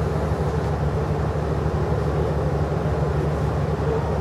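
An engine running steadily at an even speed, with a fast, regular low throb.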